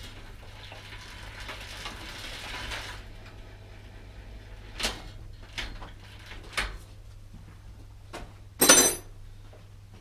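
Hands and tools working on a bicycle while a rear wheel is fitted into the frame: a scraping rustle for the first few seconds, then several sharp metallic clicks, and a loud, short metallic clatter near the end.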